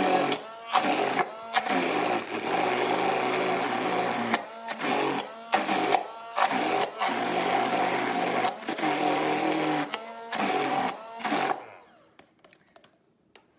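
Handheld immersion blender running in a plastic tub, its blade churning a thick mix of cottage cheese and flaxseed oil into a creamy emulsion. The motor note dips and picks up again several times, then the blender stops near the end.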